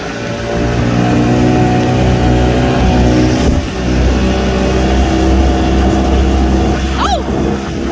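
Towing speedboat's engine running steadily at speed, its pitch shifting slightly about three and a half seconds in. A brief falling high sound comes near the end.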